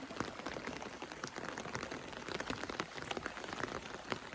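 Rain pattering on a surface: a dense, irregular patter of many small drop hits.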